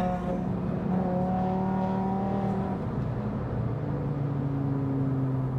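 Audi RS3 8V's turbocharged 2.5-litre five-cylinder engine running under way, heard from inside the cabin: a steady engine note that steps down in pitch about three seconds in.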